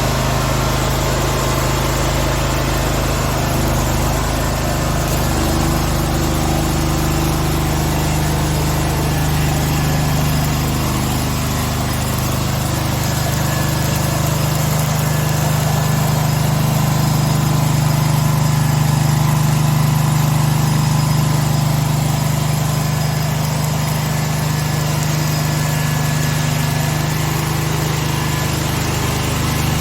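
Vermogen VG-CMGE 11000 11 kW gasoline generator running steadily.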